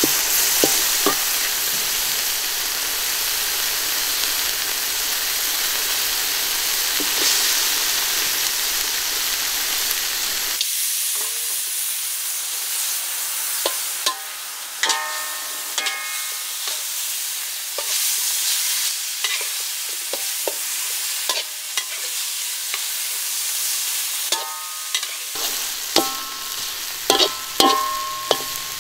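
Chicken and chili curry paste sizzling in a large steel wok, stirred with a metal spatula that scrapes and knocks against the pan. The knocks ring briefly and come more often in the second half, several close together near the end.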